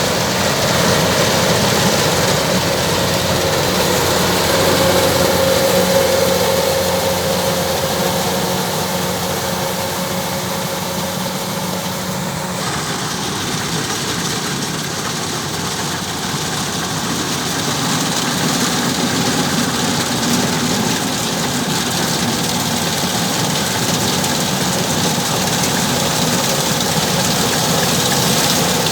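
Kubota DC-105X rice combine harvester running: a loud, steady din of its diesel engine and machinery, which shifts abruptly in tone about twelve seconds in.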